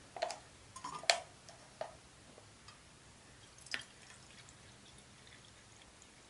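Plastic water bottle clicking and crinkling in the hand as it is opened, with a few sharp ticks, then water poured gently from it into a small metal measuring cup.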